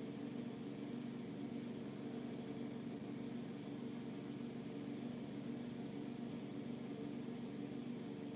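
Steady, even machine hum with no chirping or other events.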